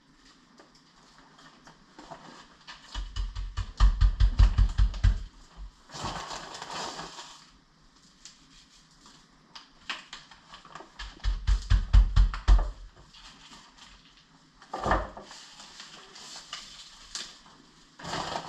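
A hand patting and rubbing brown sugar into a raw pork butt on a plastic cutting board. The thumps come quickly and evenly in two runs of about two seconds each, with softer rustling between.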